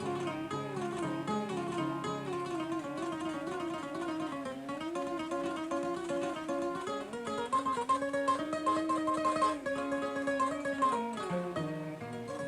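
Kora, the West African 21-string harp-lute, plucked in quick running patterns, with a man singing over it in a wavering melody and holding a long note near the end.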